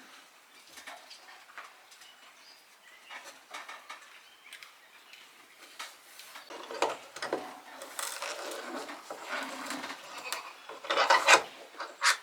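Screw eye being twisted into a hole in a wooden beam, a screwdriver through the eye as a lever: uneven scraping and rubbing of metal threads biting into wood, with a few clicks. The scraping starts faint and grows louder in the second half.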